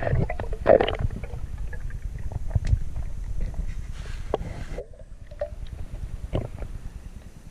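Underwater pool sound: a low rumble with bubbling and scattered clicks and knocks as gear is handled. It gets quieter about five seconds in.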